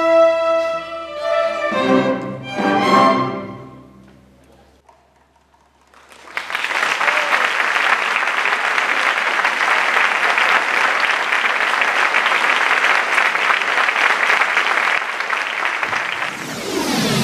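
A youth orchestra, mostly violins, cellos and double basses, plays its closing chords, which die away about four seconds in. About two seconds later the audience breaks into applause that goes on for about ten seconds, and a short falling whoosh comes near the end.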